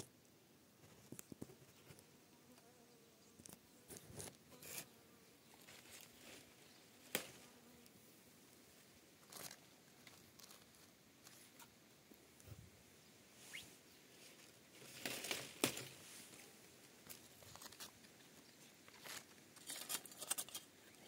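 Near-quiet background with scattered faint clicks and small rustles, a denser patch of crackling rustle about two-thirds of the way in and again near the end.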